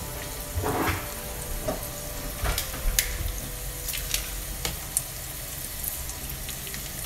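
Sliced garlic sizzling steadily in olive oil in a frying pan. Metal tongs click sharply against a stainless saucepan several times as spaghetti is stirred into the water.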